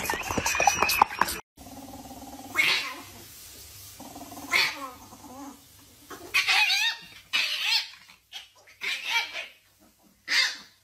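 For the first second and a half, a black dog makes a dense, loud burst of play-growling as it lunges. After a sudden cut, two cats growl and yowl at each other in about six short, wavering calls spaced a second or two apart.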